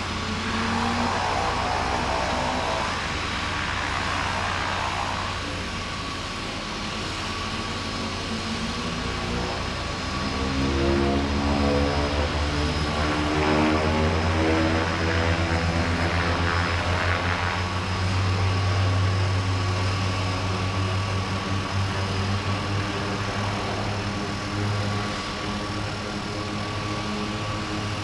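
Floatplane's propeller engine running during its takeoff from the water. It grows louder through the middle, then eases off toward the end.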